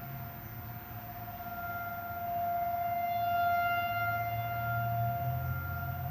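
Outdoor tornado warning sirens sounding a steady tone during their monthly test, the nearest a Federal Signal 2001. The single held pitch swells louder about two seconds in and eases off slightly near the end.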